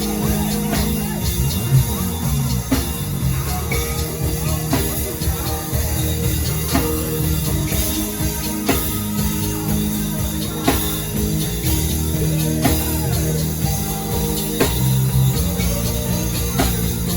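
Live gospel worship band playing: a drum kit keeping a steady beat over sustained keyboard chords, bass and guitar, with some singing.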